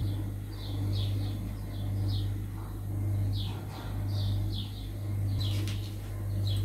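A bird chirping, short falling calls about twice a second, over a steady low hum that swells and fades about once a second.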